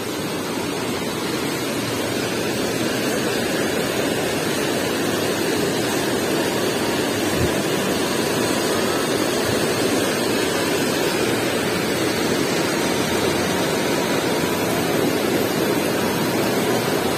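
Swift river water rushing over rocks in a steady, even roar, growing a little louder over the first few seconds.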